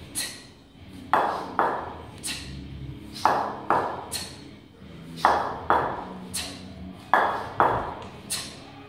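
Two cast-iron kettlebells clinking against each other in repeated double-kettlebell reps. Ringing metallic clanks come in pairs about every two seconds, with a lighter clink between.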